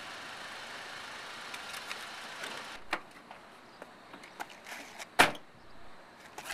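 Steady background noise inside a pickup truck's cab, then a click from the door near the three-second mark and the driver's door slammed shut about five seconds in, the loudest sound.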